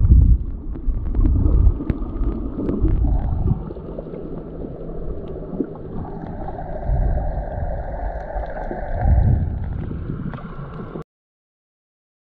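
Muffled underwater sound from a camera held below the surface while snorkeling: low rushing surges of water from movement, scattered small clicks, and a steadier hum from about six to nine seconds in. It cuts off suddenly near the end.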